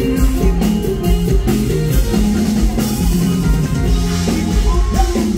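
Live band playing an instrumental passage of a Thai luk thung song: a drum kit with a steady bass drum under a stepping bass line and guitar.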